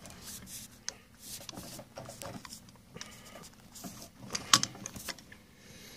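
Scattered clicks, taps and rubbing as hands press the release tabs on a Zebra printer's ribbon take-up spindle and work the part loose, with a sharper click about four and a half seconds in.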